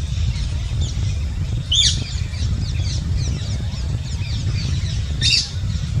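Small birds chirping continuously, with two sharper, louder calls that sweep downward in pitch, one about two seconds in and one near the end, over a steady low rumble.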